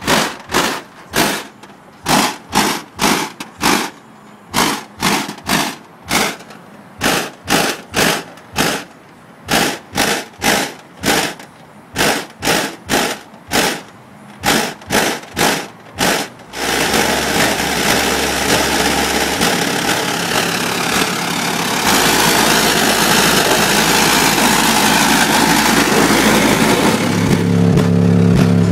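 Four 12-inch Pioneer Championship Series car subwoofers, driven by a Rockford Fosgate Prime 1000.1 amplifier, playing bass-heavy music at high volume and distorted on the recording. The first half is a quick run of bass hits, about two or three a second; from about halfway it turns into continuous distorted bass.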